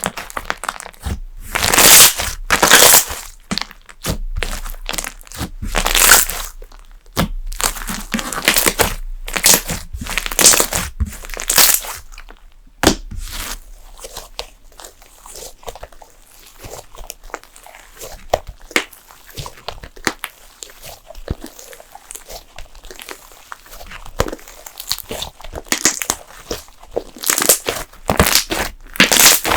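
Thick slime being squeezed, stretched and pressed by hand, giving irregular crackles and pops of trapped air. Louder bursts come in the first dozen seconds and again near the end, with a quieter stretch of small crackles in between.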